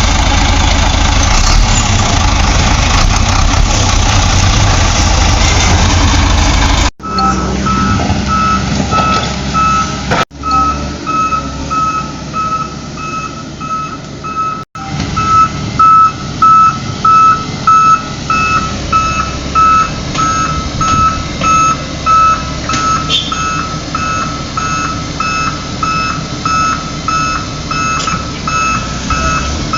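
A truck's engine running loud at first; then, after a couple of abrupt cuts, the truck's reversing alarm beeping steadily, about one and a half beeps a second, over the running engine.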